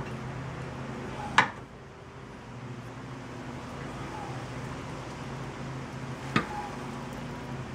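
Two sharp metal clunks about five seconds apart, each with a short ring, as the steering knuckle and lower control arm are handled while the ball joint is worked into place. A steady low hum runs underneath.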